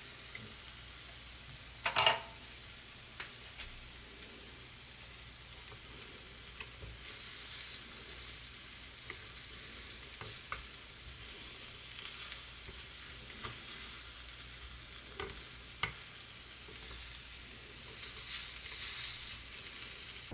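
Durian flesh sizzling on the hot plates of an open electric waffle maker, a steady frying hiss. Wooden chopsticks tap and scrape on the plates now and then, and there is one louder, ringing clatter about two seconds in.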